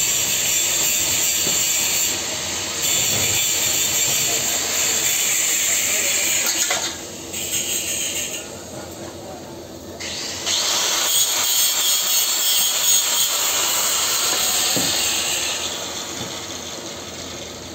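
Electric welding arc on a steel pipe joint, hissing steadily. It cuts off about seven seconds in, strikes up again a few seconds later, and stops again near the end.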